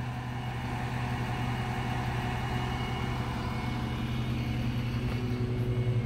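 Truck engine idling steadily with its PTO engaged, driving the hydraulic pump for the bed's outriggers.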